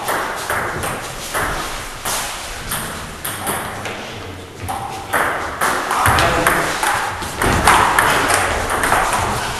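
Table tennis rally: the ball clicking off the players' bats and bouncing on the Donic table, a quick irregular series of sharp ticks about every half second.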